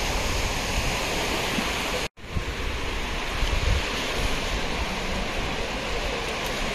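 Sea surf washing on the beach with wind on the microphone, a steady rushing noise that drops out for an instant about two seconds in.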